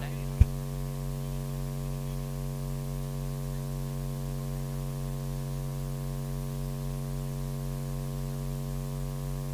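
Steady electrical mains hum and buzz from the commentary sound system, with one faint click about half a second in.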